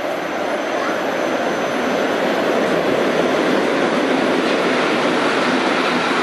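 Electric locomotive and its passenger coaches rolling past along a station platform. The steady rush and rumble of wheels on rails grows louder over the first couple of seconds as the train draws alongside, then holds.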